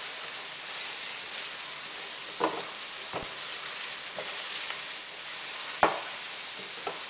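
Diced onions and garlic sizzling in hot oil in a nonstick frying pan while being stirred with a spatula, which knocks and scrapes against the pan a few times.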